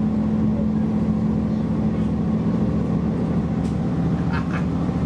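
Inside a Chiltern Railways Class 165 diesel multiple unit on the move: the underfloor diesel engine drones with a steady low hum over the rumble of the wheels on the track. The engine's note weakens about two seconds in.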